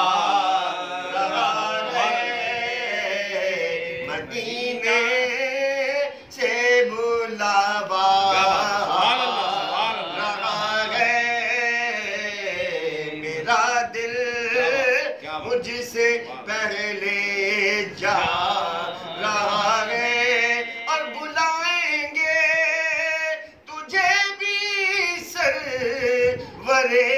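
Men singing a naat with no instruments, the lead voice holding long, wavering notes.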